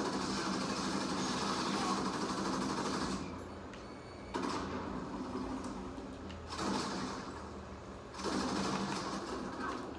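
Electric hair trimmer buzzing as it cuts, with two brief dips, about three and about seven seconds in.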